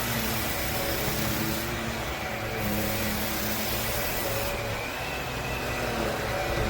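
Cordless stick vacuum running steadily, its motor tones wavering slightly and its hiss thinning for a moment about two seconds in and again from the middle on.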